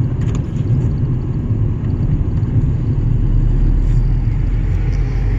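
Ford Ranger pickup driving slowly, heard from inside the cab: a steady low engine and road rumble that deepens about three seconds in.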